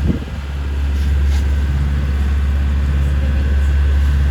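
A boat's engine running steadily underway, a constant deep drone.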